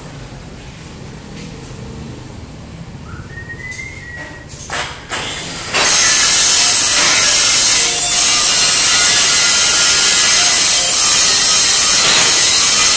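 Power tool grinding metal: a low workshop background at first, a short rising whine about three seconds in, a few bursts, then loud steady grinding from about halfway, with brief breaks near the end.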